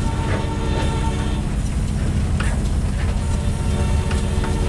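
Diesel freight train rumbling steadily past, heard from inside a car, with a few scattered knocks and taps against the car.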